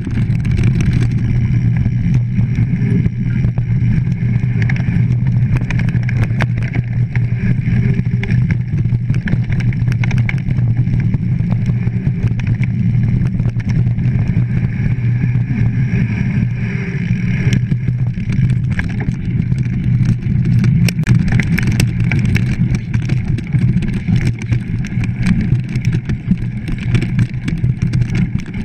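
Mountain bike rolling over a dirt woodland trail: a steady low rumble of tyres and wind buffeting the microphone, with frequent clicks and rattles from the bike over bumps, more of them in the second half.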